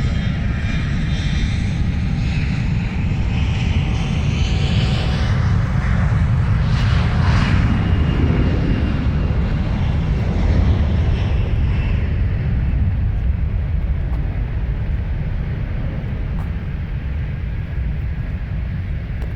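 Airbus H145 helicopter's twin turboshaft engines whining over a steady low rotor rumble. The high whine swells through the middle and fades away about two-thirds of the way through, as the helicopter moves off.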